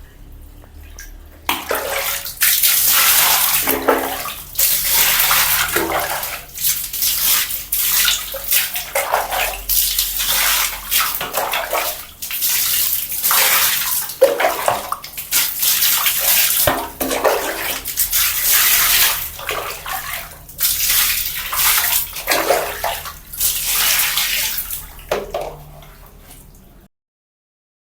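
Water thrown from a bucket, splashing and pouring in repeated loud surges a second or two apart, then stopping abruptly.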